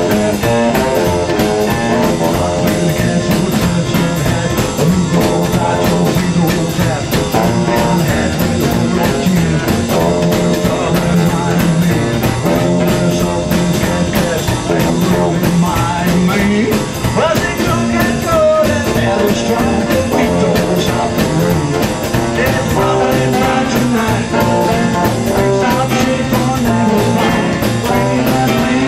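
A live garage swing band playing an up-tempo number: upright bass, drum kit, hollow-body electric guitar through a small amp, and saxophone.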